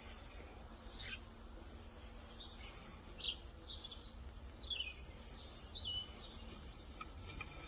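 Birds chirping, a series of short falling chirps every second or so, over a steady low outdoor background rumble.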